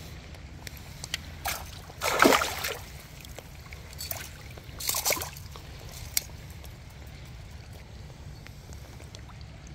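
Water splashing in a few short bursts, the loudest about two seconds in and another about five seconds in, over a steady low rumble.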